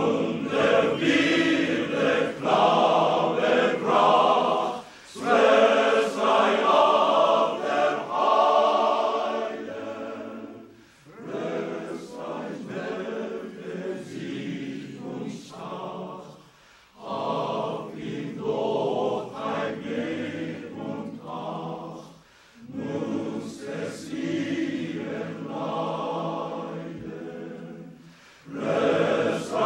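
Choir singing in phrases of about five or six seconds, with short breaks between them; loud for the first ten seconds or so, then softer.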